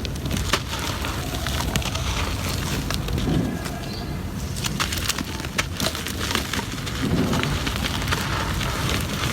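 Gritty cement crumbling and breaking apart: a steady dense crackle with many small sharp cracks.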